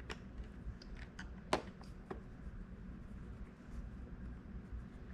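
Faint clicks and taps of screws, a screwdriver and plastic console parts being handled during reassembly, with one sharper click about a second and a half in.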